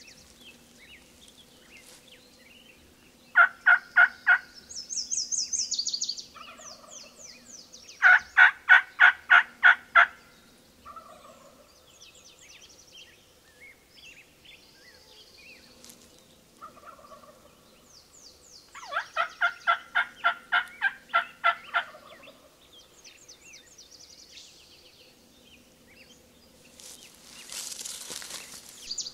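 Turkey yelping: three runs of evenly spaced, repeated notes, the first short, a second longer one a few seconds later, and a third, longest one past the middle. Faint high songbird chirps sound between them, and a brief rustle of brush comes near the end.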